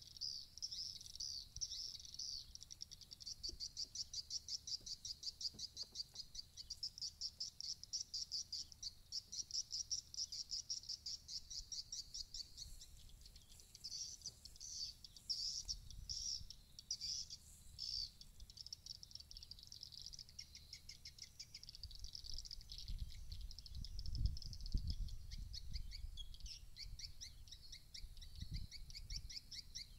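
Swiftlet calls used as a swiftlet-house lure sound: rapid runs of high, pulsed twittering chirps, many per second, repeating in bursts. In the second half a low rumble of wind on the microphone comes and goes.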